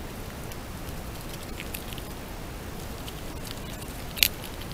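Pine marten feeding at a wooden squirrel feeder: scattered small clicks and crackles of chewing and scrabbling over a steady hiss, with one sharp click about four seconds in.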